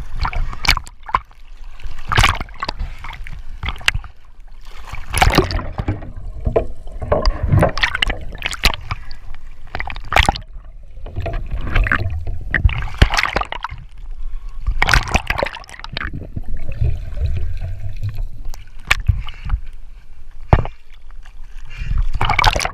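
Sea water sloshing and splashing in uneven surges, with a few sharp knocks.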